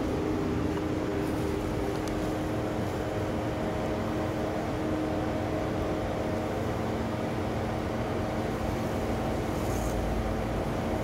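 Steady mechanical hum with a few low tones held throughout, like an engine or machine running without change.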